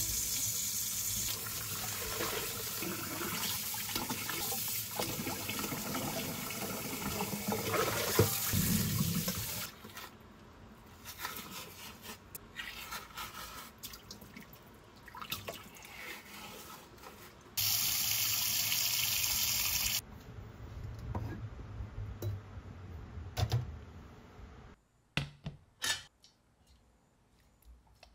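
Kitchen tap running into a sink for about ten seconds, then quieter scattered handling sounds. A second short rush of noise follows, and a few sharp clicks come near the end.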